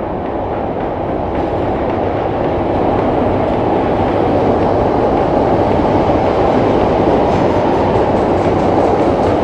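Passenger train running, a steady loud rumble of wheels on track that grows louder over the first few seconds, then holds.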